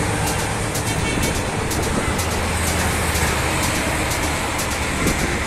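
Vintage cars and a six-wheeled vintage truck driving past, their engines running with a steady low drone over tyre and road noise.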